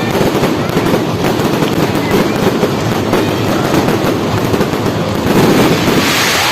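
Fireworks crackling in a dense, continuous barrage of rapid small pops over a heavy rumble.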